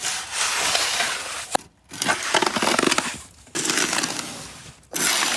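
A snow shovel is pushed and scraped through deep snow, crunching in about four long strokes with short pauses between them.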